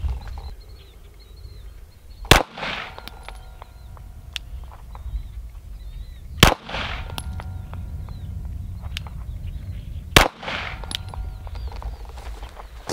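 Three single pistol shots from a Glock, spaced about four seconds apart, each followed by a short echo. These are slow, deliberate shots fired to zero the red-dot sight. A steady low wind rumble runs underneath.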